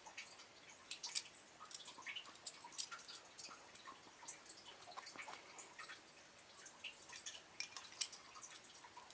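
Small, irregular plastic clicks and ticks, a few each second, from the Beyblade's parts and packaging being handled.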